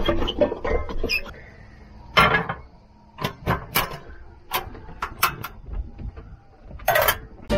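Water poured from a plastic jug into a stainless-steel kettle, then the ignition knob of a Nurgaz portable gas cartridge stove turned, giving a run of sharp clicks about three to five and a half seconds in.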